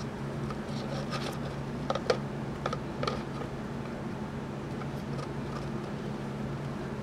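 A handful of light plastic clicks and taps as a vacuum's clear dust cup and pleated filter are handled, in the first half, over a steady low hum.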